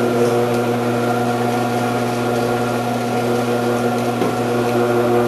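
Omcan HLC 300 vegetable cutter's electric motor running steadily with a hum, its shredding disc spinning.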